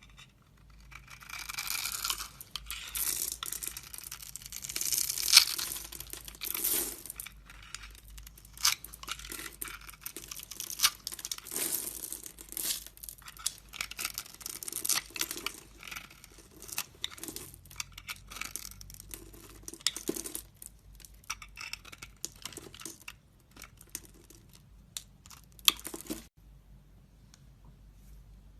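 A knife cutting and scraping into a bar of soap, with crisp crackling and many small clicks as the soap crumbles. It starts about a second in and stops near the end.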